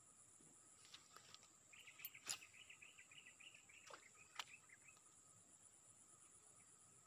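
Faint rural ambience: a steady high insect drone, with a bird's rapid chattering call from about two seconds in to near five seconds. A few sharp clicks sound over it, the loudest about two seconds in.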